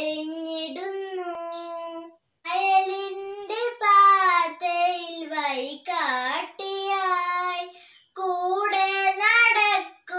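A young girl singing unaccompanied, holding long notes, with short breaks for breath about two seconds in and again near eight seconds.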